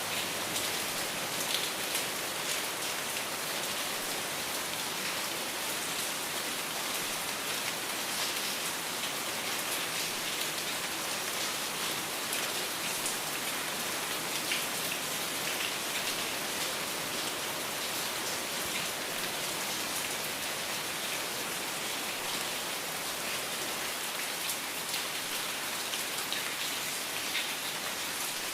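Steady rainfall, an even hiss of drops with many fine individual drop ticks pattering on surfaces.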